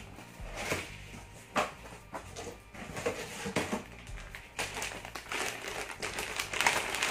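A cardboard box being opened by hand, with scattered knocks and scrapes of the cardboard flap. From about halfway through, plastic bags crinkle as the packed accessories are pulled out.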